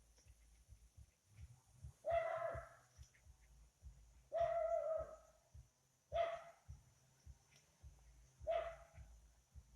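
A dog barking four times, each bark fairly long and drawn out, a couple of seconds apart.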